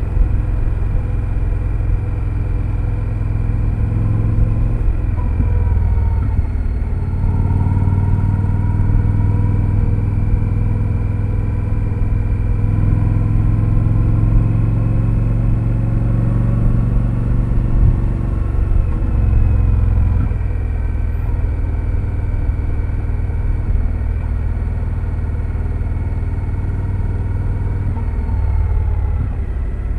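2025 Indian Scout Sixty Bobber's V-twin engine through its stock exhaust, running steadily while riding. The revs rise and fall a few times with the throttle.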